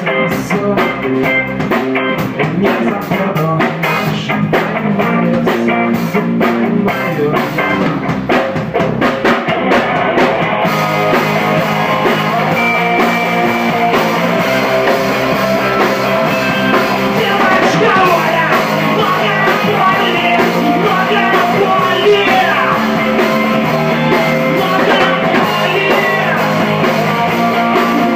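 Live rock band playing: electric guitar over a drum kit, the sound filling out and getting a little louder about eleven seconds in.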